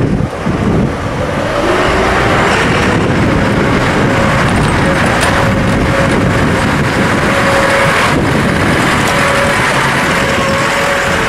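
McCormick tractor's diesel engine running as it pulls a loaded flatbed trailer out and drives past close by; the engine note rises over the first couple of seconds, then holds steady.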